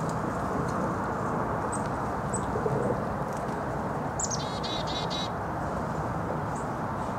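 Small songbird calling: a few thin, very high chirps, then about four seconds in a quick run of repeated notes lasting about a second, over a steady low background noise.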